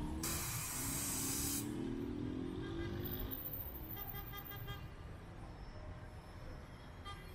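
Road traffic on a wet street: vehicle engines pull away with rising pitch over a low rumble. A sharp hiss of released air, typical of a bus's air brakes, comes in near the start, lasts about a second and a half and cuts off suddenly.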